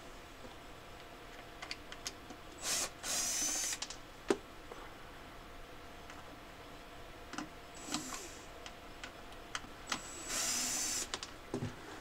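Cordless drill-driver backing out the screws that hold old hive frame spacers. It runs in three short bursts: about a second near 3 s in, a brief one near 8 s, and about a second again near 10.5 s. Small clicks and knocks of screws and metal come in between.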